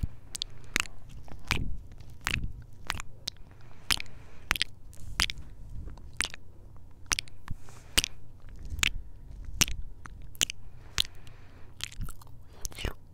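Close-miked ASMR kisses, the lips pressed right against a handheld Tascam recorder: a string of sharp lip smacks and pops, about two a second at uneven spacing.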